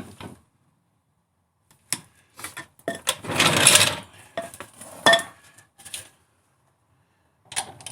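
Metal clanks and clinks of a jack and hand tools as the car is lowered onto its refitted wheel, with a longer, louder rattling scrape about three seconds in.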